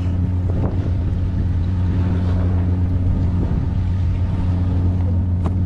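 Fishing boat's engine running with a steady low hum, with a single light click near the end.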